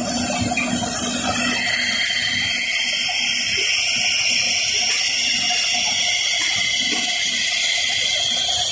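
Coolant water spraying and running over glass as a CNC glass-drilling machine drills stove glass: a steady rushing sound with a constant whine underneath.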